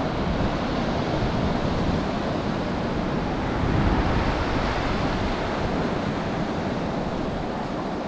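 Sea surf breaking and washing up a sandy beach, a steady rush that swells a little about four seconds in, with wind buffeting the microphone.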